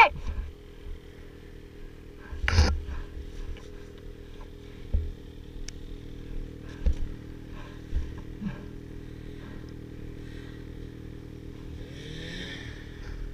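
Snowmobile engine idling steadily, with a sharp knock about two and a half seconds in and a few smaller thumps after it. Near the end the engine revs up briefly.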